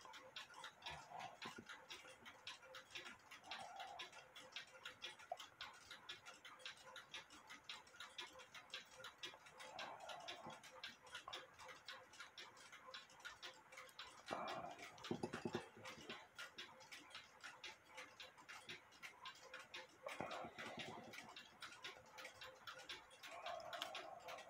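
Faint, steady ticking of a mechanical clock running in the workshop, several ticks a second, with light handling noise from the small clock movement being taken apart.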